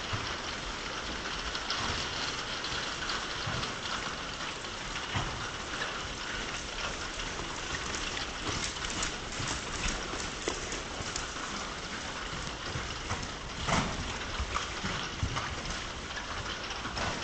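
Grey horse cantering and jumping on arena sand: soft hoofbeats under a steady hiss with scattered crackles, and one louder thud near the end.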